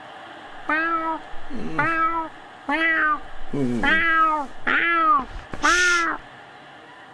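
Cartoon cat meowing repeatedly: six meows about a second apart, each rising and then falling in pitch, the last with a breathy edge.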